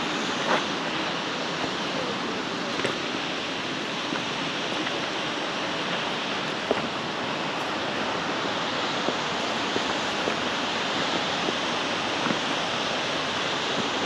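Steady rushing of a 70-foot waterfall, an even unbroken wash of water noise, with a few light clicks scattered over it.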